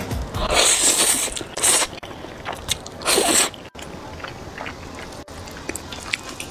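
Close-miked eating of saucy instant noodles: two loud slurps, about half a second in and again around three seconds, then chewing with small wet clicks.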